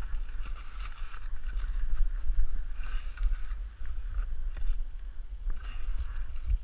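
Low, steady wind rumble on the microphone, with light knocks and rustling as pieces of wood are handled in the snow.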